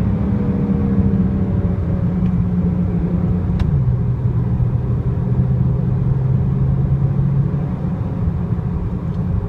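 BMW 335xi's twin-turbo N54 straight-six running under way as the car drives on; the engine note eases down at first, holds steady, then drops to a lower pitch about four seconds in.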